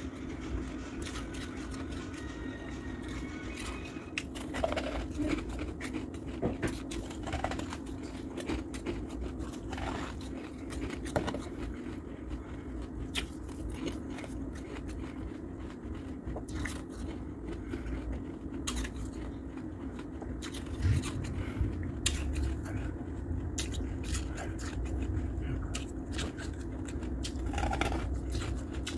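Shaved freezer ice being scraped and crunched: irregular scratchy, crackly clicks over a steady low hum.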